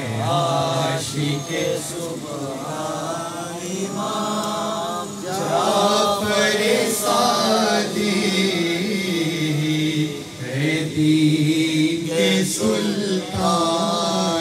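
A man chanting a devotional Urdu qasida (manqabat) into a microphone in long, held, wavering melodic lines, with a few short breaks for breath.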